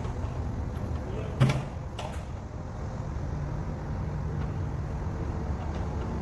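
Heavy engine running steadily at a low rumble, with one sharp knock about a second and a half in and a lighter click shortly after.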